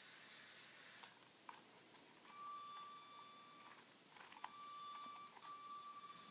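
Faint whine of a Lego RC car's small electric motors: a high hiss in the first second, then a steady high-pitched whine that comes on in three stretches, with a few sharp clicks between them.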